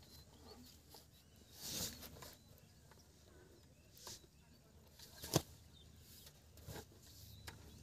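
Faint, scattered scrapes and knocks of a spade working dry, caked mud and of footsteps on it; one sharp knock about five seconds in is the loudest.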